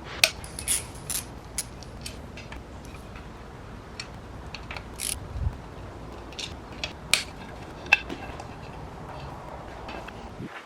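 Irregular clicks and metallic clinks of hand tools working on engine parts during an engine teardown.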